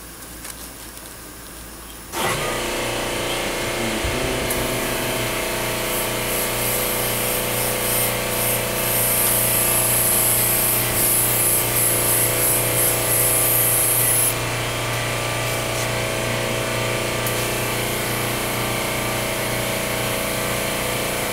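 An airbrush air compressor's motor switches on suddenly about two seconds in and runs with a steady hum, while a Harbor Freight double-action suction-feed airbrush sprays paint with a hiss that grows louder and higher from about four seconds in until about fourteen seconds in.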